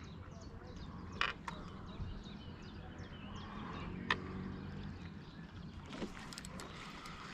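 Quiet lakeside ambience: faint small-bird chirps through the first few seconds, two sharp clicks about one and four seconds in, and a faint low hum around the middle.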